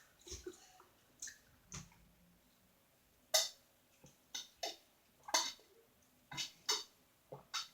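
A person chewing raw vegetables close to the microphone: a string of short, sharp, wet mouth clicks and crunches at an irregular pace, louder and more frequent from about three seconds in.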